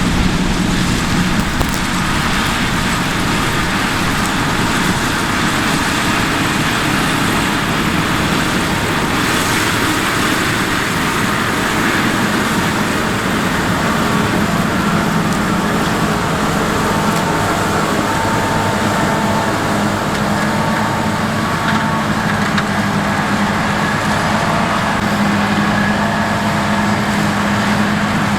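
Heavy farm machinery running steadily at work in a maize harvest: the continuous drone of a combine harvester or hauling tractor's diesel engine, with a steady hum that grows slightly more pronounced in the second half.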